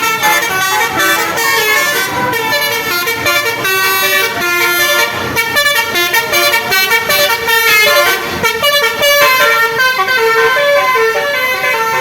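Tour bus's basuri musical horn playing a fast melody (telolet), loud stepped horn notes changing several times a second and keeping on throughout.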